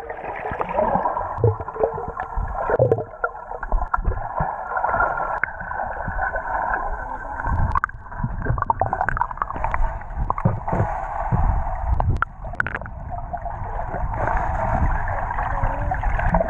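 Muffled underwater sound of a swimming pool picked up by an action camera in its waterproof housing: a steady rushing of water, dull and cut off in the highs, with scattered clicks and low thumps as legs move in the water.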